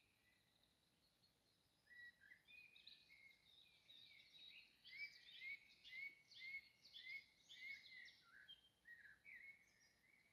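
Faint birdsong: a run of quick chirps and trills begins about two seconds in, with a short rising note repeated about twice a second in the middle, before it thins out near the end.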